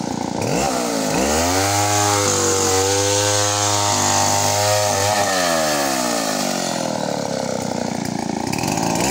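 Stihl two-stroke chainsaw revved from idle up to high speed about a second in and held there for several seconds, then eased back down toward idle, revving again near the end.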